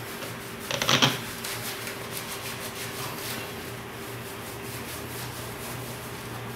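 Hands scrubbing shampoo lather into a Siberian Husky's wet leg fur, a soft repeated rubbing, with one short louder scuffle about a second in, over a steady low hum.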